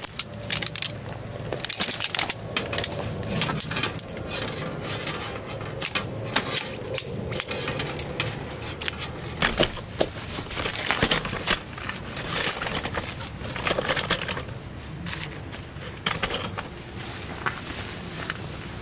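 Hiking boots crunching and scuffing on loose gravel, a run of irregular crunches and small clicks.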